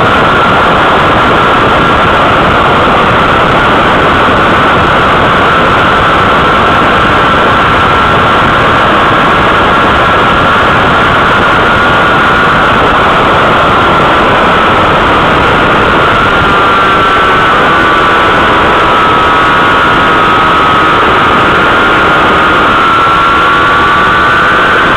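Loud wind roar on a motorcycle-mounted camera at high speed, with the sport bike's engine whining at high revs underneath. The whine holds a steady pitch, then wavers and splits into several tones in the second half.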